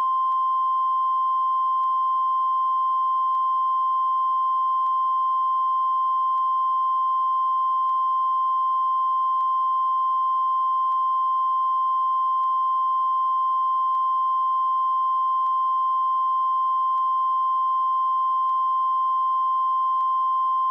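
A steady, unbroken high beep: the 1 kHz line-up tone that plays with broadcast colour bars as an audio reference level before a programme segment.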